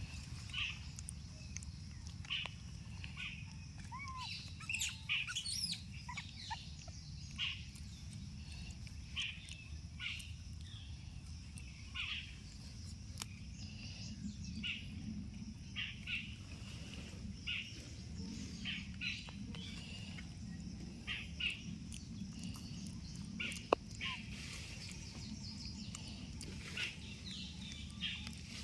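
Birds chirping in short, scattered calls, with a few quick rising and falling notes, over a steady low rumble.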